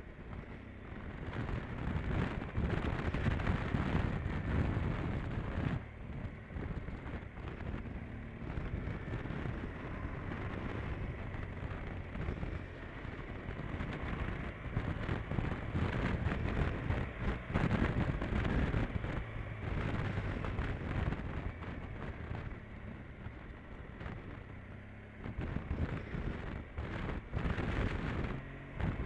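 Wind buffeting the microphone of a camera mounted on a moving motorcycle, with the bike's engine running underneath. The rushing noise swells and fades several times.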